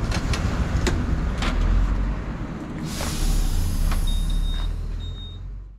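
Honda Super Cub C125's single-cylinder engine and road noise heard from the bike-mounted camera while riding, a low rumble with scattered light ticks and rattles. About three seconds in, a loud hiss rises, and near the end a thin high beep sounds twice.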